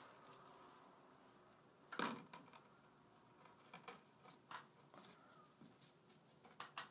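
Faint handling sounds of a tile being pressed up into wet thinset on a ceiling with a gloved hand: one sharp knock about two seconds in, then light scattered clicks and scrapes as the tile is worked into place.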